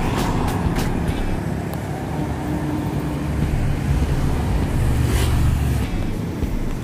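Road traffic passing, a steady low rumble that swells to its loudest about four to six seconds in as a vehicle goes by.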